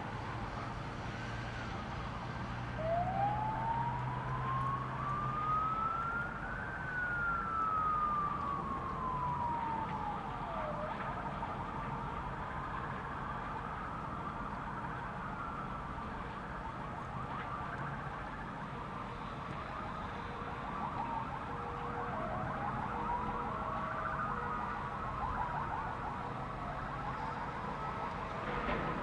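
Several emergency-vehicle sirens wailing at once, slow wails that rise for a few seconds and fall again, overlapping; in the second half a faster wail joins in.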